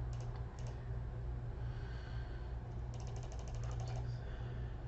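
Computer keyboard keystrokes: a couple of single clicks at the start, then a quick run of about a dozen keystrokes about three seconds in, over a steady low hum.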